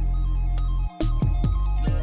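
Electronic background music with a heavy bass line and sharp drum hits. The bass cuts out for a moment about a second in.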